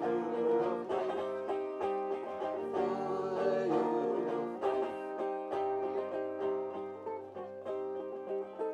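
Acoustic plucked-string music, an instrumental passage of quickly picked notes.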